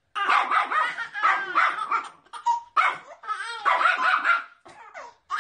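A small dog barking over and over in quick succession.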